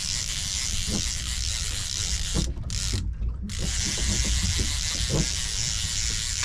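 Fishing reel's ratchet clicker buzzing continuously as the spool turns while a tope is being played. The buzz cuts out briefly a little before the middle, then resumes.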